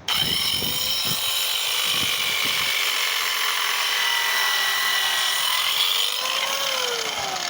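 Small 3-inch-blade circular saw starting abruptly and cutting through 4x4 timber: a steady high whine over sawing noise. Near the end the pitch falls away.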